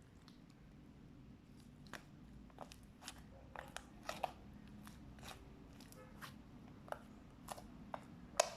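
Fluffy slime being pressed and squished by hand, giving a string of small sharp irregular pops and crackles as air pockets burst, the loudest just before the end.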